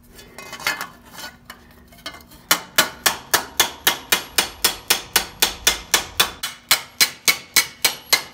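Planishing hammer striking the edge of a steel dog-armor helmet held over a domed mushroom stake, smoothing out the bumps left by the rollover and offset. After a quieter start with a few light knocks as the piece is handled, a steady run of sharp, ringing metal-on-metal blows begins about two and a half seconds in, at about four blows a second.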